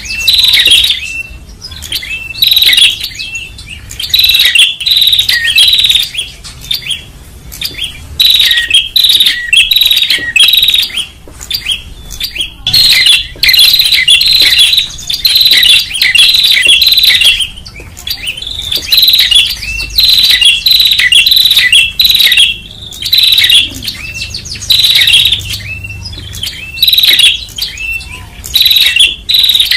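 Prenjak (tailorbirds) calling noisily: one burst after another of loud, sharp, high chirping notes, each burst a second or two long, with short breaks between.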